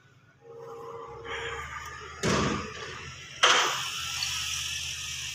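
Two sudden thuds about a second apart over a steady background noise, the second followed by a sustained rushing noise.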